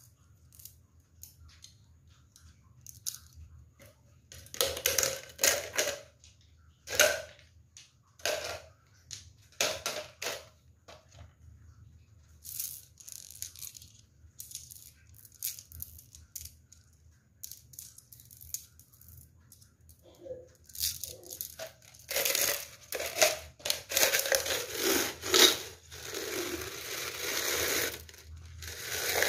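Dry leaves crackling and crunching, first in separate short bursts, then sparse faint crackles, then near-continuous crunching from about two-thirds of the way in.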